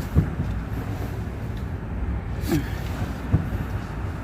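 A few light knocks and a short falling squeak from handling inside a van's cab, over a steady low rumble.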